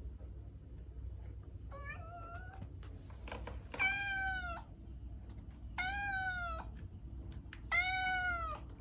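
Domestic cat meowing: one softer call, then three louder meows about two seconds apart, each rising and then falling in pitch, over a low steady hum.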